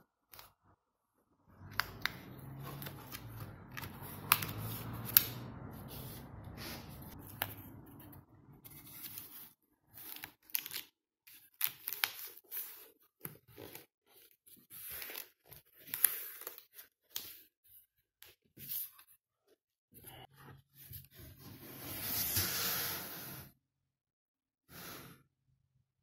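Board and backing panel being fitted by hand into a wooden picture frame: a long stretch of rubbing and sliding with sharp clicks and knocks, then short scattered scrapes, and a longer, louder scrape near the end.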